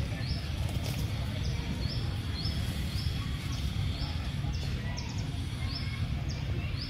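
A bird repeating a short, high chirp about twice a second, over a steady low rumble.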